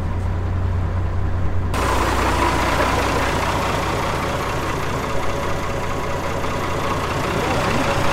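Alvis Stalwart's Rolls-Royce B81 straight-eight petrol engine running steadily while the amphibious truck is afloat. About two seconds in, the sound changes suddenly from a low, muffled hum to a brighter, closer engine sound with hiss and a steady whine.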